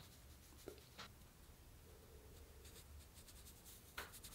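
Faint dry rustling of cocoa powder being dusted on, with a few light taps.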